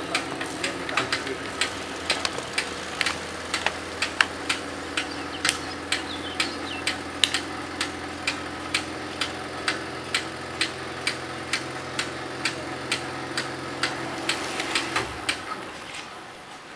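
Level-crossing bell striking steadily about two times a second over a steady low mechanical hum; both stop shortly before the end.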